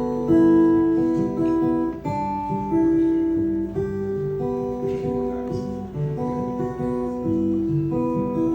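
Acoustic guitar strumming a steady chord progression, played live as a song's instrumental intro.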